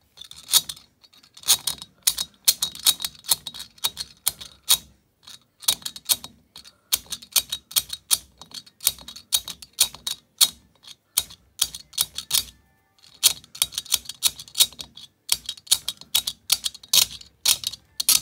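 Pliers tapping lightly on a bolt screwed into a rocker-arm shaft pin in a 250 cc ATV engine's cylinder head, working the pin loose: quick runs of sharp metal clicks, several a second, with short pauses.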